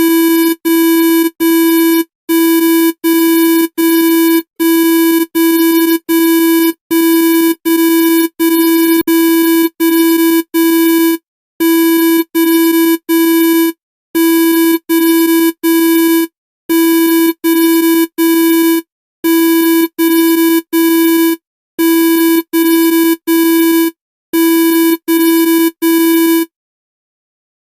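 Emergency alert (EAS-style) alarm tone: a harsh, buzzy electronic beep sounding in groups of three. The groups repeat about every two and a half seconds, about eleven times, then stop.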